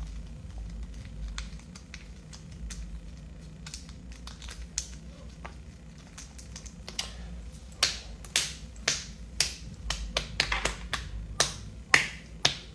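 Sharp clicks and taps from hands handling something close to the microphone: a few scattered ones at first, then a quick run of several a second from about eight seconds in.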